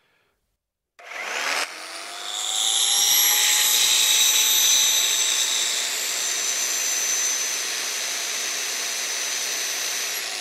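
Corded concrete-breaking drill (rotary hammer) switched on: its motor spins up with a rising whine about a second in, then runs steadily at full speed.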